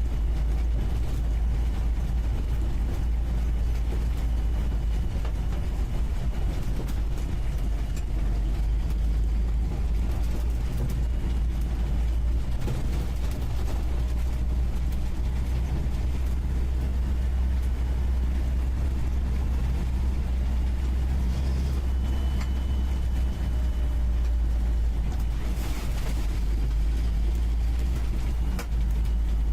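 UAZ 469B engine running as the vehicle drives along, heard from inside the cab at the passenger seat: a steady low drone with a few short knocks and rattles.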